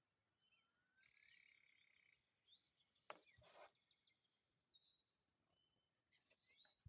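Faint chirps and short calls of several small birds. A steady buzzy trill runs for about a second near the start, and a brief harsh scratchy sound comes about three seconds in.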